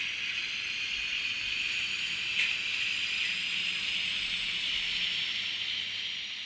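ZIMO MS500 sound decoder in a Fleischmann N-scale ÖBB 1010 electric locomotive, playing the prototype's running sound through its miniature speaker as the model drives along. It is a steady hiss with faint high tones slowly rising in pitch, with a single click about two and a half seconds in, fading near the end.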